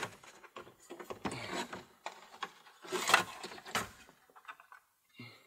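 Hard plastic dash trim panel of a 2003 Ford F-150 being pulled free. A sharp snap of a retaining clip letting go comes at the start, followed by several bursts of plastic scraping and rattling as the panel is worked out past the steering wheel.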